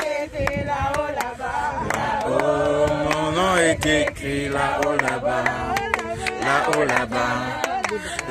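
A church congregation singing a French gospel chorus together, unaccompanied, with hand clapping throughout.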